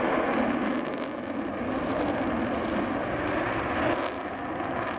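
Avro Vulcan bomber's four Rolls-Royce Olympus turbojets, a steady jet noise as the aircraft flies past.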